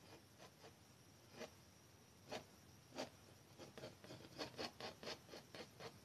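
Palette knife dabbing and scraping oil paint onto the canvas: faint short scratchy strokes, a few scattered ones at first, then a quicker run of about four a second in the second half.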